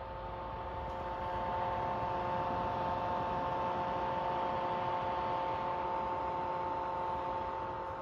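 Fan of a Mobicool 12 V thermoelectric cooler running, a loud steady hum with a whine in it. It runs nonstop because the cooler has no thermostat.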